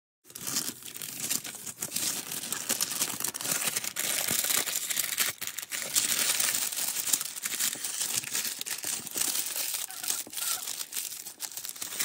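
Plastic cling film crinkling and rustling with many small crackles as it is handled and wrapped around a batch of body scrub; the sound starts suddenly.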